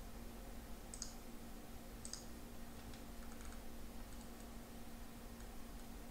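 Computer mouse clicks, faint, three of them about a second apart with a few fainter ones after, over a low steady electrical hum.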